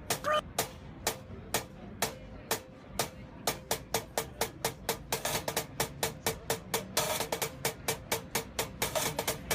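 Percussive music of sharp taps on an object, about two a second at first and growing quicker and denser through the second half, over a faint steady ringing tone.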